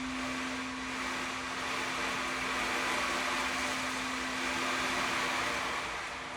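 Sound-bath drone: one steady pure tone held under an even rushing hiss that swells and eases slowly.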